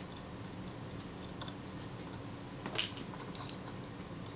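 Small jeweller's screwdriver clicking and scraping on the screw of a Kodak Retina II camera's metal depth-of-field dial: a few faint, sharp metallic ticks, the loudest about three seconds in.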